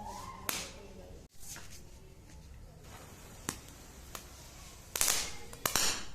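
Chatpat crackers going off: a few isolated sharp snaps, then two short, loud crackling bursts near the end.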